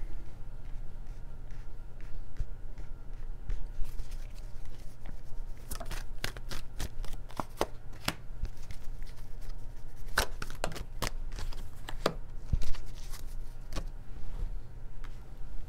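Tarot cards being shuffled in the hands and laid down on the table: soft riffling with scattered sharp card snaps, over a steady low hum.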